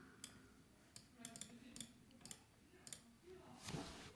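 Near silence with a handful of faint, scattered computer mouse clicks, and a soft puff of noise near the end.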